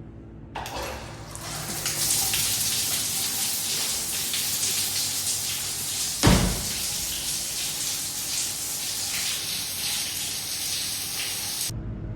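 Water running steadily from a tap, starting shortly after the beginning and cutting off sharply near the end. A single knock about halfway through is the loudest moment.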